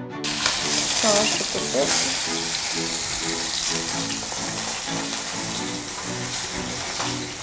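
A whole turkey sizzling steadily as it browns in hot oil in a pot, with background music playing over it.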